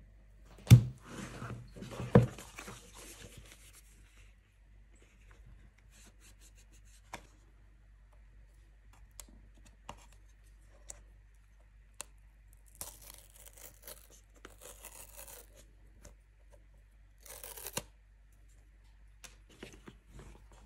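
Paper tear-off seal strips on an iPhone box being pulled away, ripping in two spells in the second half. Knocks and light taps of the cardboard box being handled come before.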